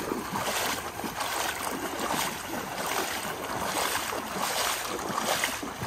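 Swamp water sloshing and splashing in repeated surges as a buck's carcass is dragged through it by hand, with wading steps.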